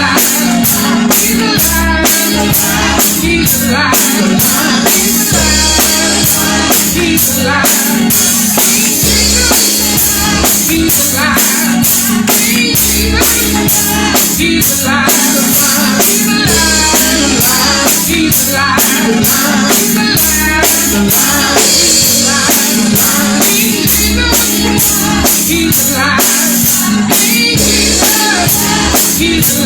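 Praise and worship music with singing over a drum kit, bass and other instruments, keeping a steady beat.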